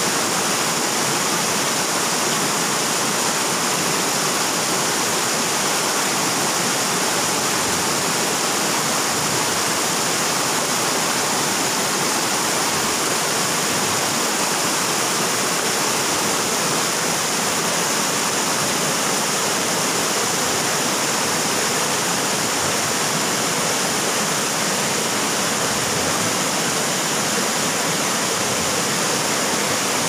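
Shallow river rushing over boulders and small rapids: a steady, unbroken sound of running water.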